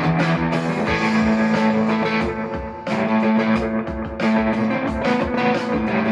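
Strat-style electric guitar played through an overdrive pedal and delay into a Vox AC15 valve amp with a Celestion Alnico Blue speaker, strumming and picking overdriven chords at a loud volume. The chords change about a second in and again near three seconds.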